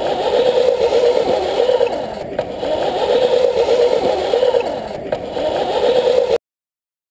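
Razor E300 electric scooter running, a steady whirring rattle from its motor drive and rear wheel that swells and eases three times, then cuts off suddenly.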